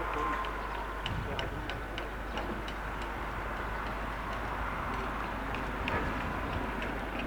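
Light ticking, a few ticks a second and not quite even, over a steady background rumble and hiss. A faint steady tone comes and goes near the start and again near the end.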